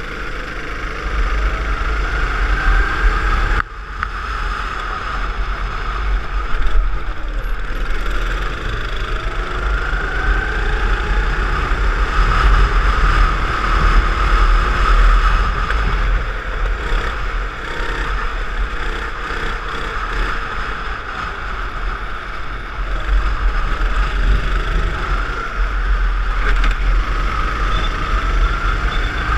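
Hire go-kart engine heard from onboard at full racing pace, its pitch climbing as the kart accelerates and dropping off when the driver lifts for corners, several times over, under a heavy low rumble.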